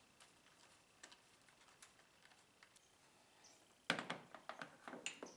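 Small clicks and clatter of hand work on wiring hardware: faint scattered ticks, then a quick run of louder sharp clicks and knocks from about four seconds in.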